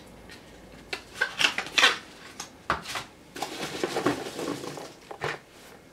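Hands digging through foam packing peanuts in a cardboard box: irregular rustling and squeaking of the foam, with a few sharp clicks of plastic paint pots knocking together.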